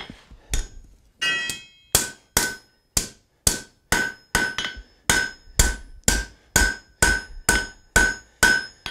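Hand hammer striking hot steel bar stock on an anvil, about two blows a second, each with a short ring from the anvil. The smith is rounding off the sharp edges of a freshly drawn-out taper.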